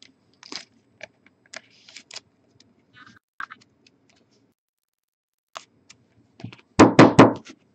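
A clear rigid plastic card holder being handled as a thick relic card is fitted into it: scattered light clicks and scrapes of plastic, then near the end a quick run of four or five loud knocks.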